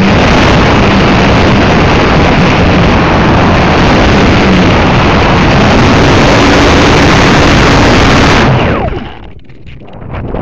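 Model aircraft's propeller and motor running at full throttle, heard from an onboard camera as a loud rush of propeller wash and wind over the microphone, with a faint steady hum underneath. About eight and a half seconds in, the power cuts back sharply and only a quieter rush of wind is left.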